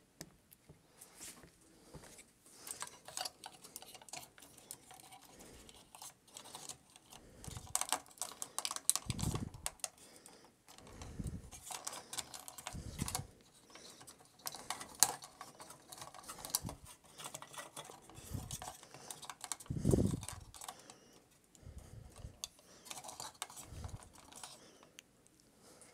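Plastic model kit figure being posed by hand: irregular small clicks and taps of plastic joints and parts being moved, with a few soft low thumps, the loudest about twenty seconds in.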